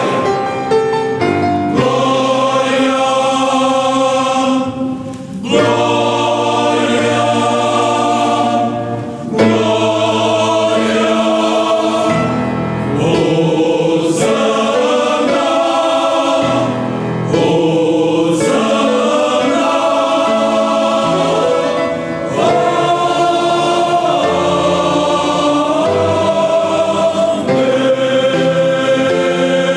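Choir singing a hymn with long held notes, with short breaks about five and nine seconds in.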